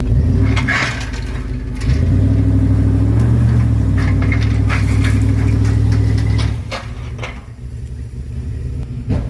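A 1994 GMC Yukon's engine revving up hard about two seconds in and holding there for about four seconds, then dropping back toward idle, as the truck pushes with its snowplow blade. A short sharp knock comes near the end.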